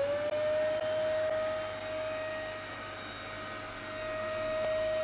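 A steady whine held at one pitch over a low hum. It has just glided up to that pitch as it started, like a motor spinning up to speed.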